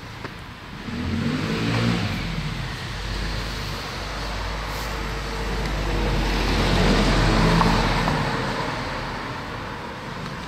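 Motor vehicles passing on a road, with engine and tyre noise swelling to a peak about two seconds in and again, louder, around seven to eight seconds.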